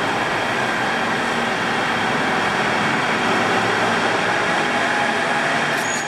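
Steady rushing noise of a car moving slowly through a concrete multi-storey parking garage.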